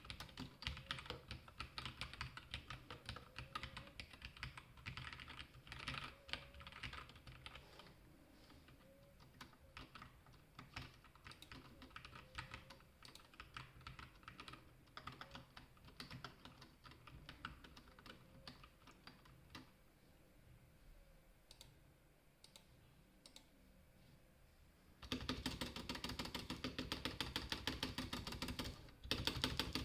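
Typing on a Red Square Keyrox TKL mechanical keyboard with Gateron Yellow linear switches and stock keycaps: irregular keystrokes, softer through the middle, then fast, dense and louder typing over the last few seconds.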